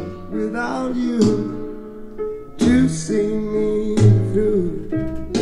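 A recorded song playing through Von Schweikert Vortex Screen hi-fi loudspeakers: singing over guitar, with plucked notes landing about every second or so.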